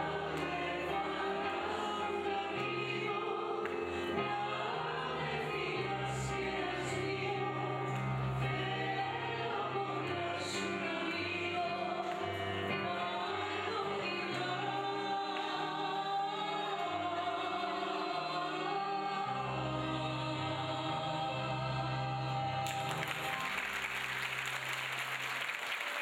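Women and a man singing a Greek popular song together with piano accompaniment; the song ends a little before the close and is followed by audience applause.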